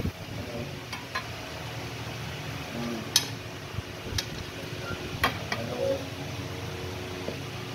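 Rubber bicycle inner tube being handled and fed into the tyre on an alloy wheel: rubbing handling noise with a few sharp clicks of tube and hands against the rim, over a steady background hum.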